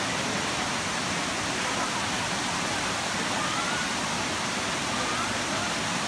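Kuang Si Falls' shallow cascades: water rushing steadily over rock steps and into pools, an unbroken rush of white water.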